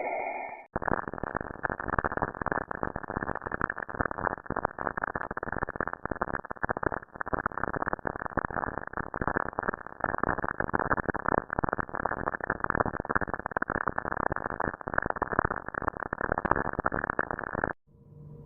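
Dense crackling static, like radio noise, cut off sharply above about 2 kHz: a spacecraft recording of the Saturn system turned into sound. It starts abruptly under a second in and cuts off suddenly near the end.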